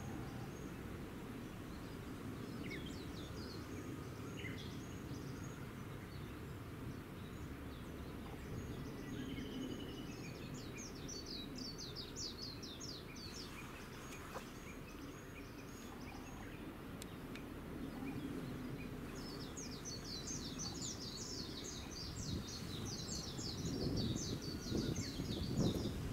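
Small birds singing twice, in rapid runs of high, quickly falling chirps, over a steady low outdoor rumble that swells near the end.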